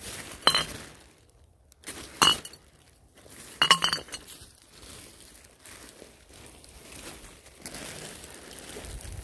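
Glass beer bottles clinking against each other as they are dropped into a plastic rubbish bag: three sharp, ringing clinks in the first four seconds, then softer rustling.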